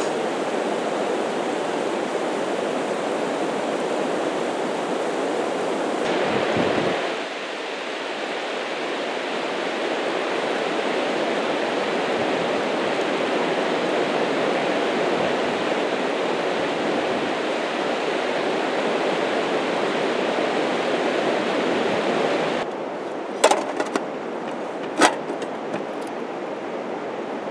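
River rapids rushing steadily over a rocky bed. Near the end the water grows quieter and a few sharp clicks are heard as camp-stove gear, a fuel bottle and pump, is handled.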